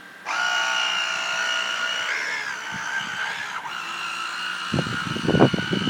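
Small electric motor of a toy RC boat whining at full speed with a steady high pitch. It cuts out at the start, resumes, and wavers slightly about two seconds in. Low rumbling bursts come in near the end.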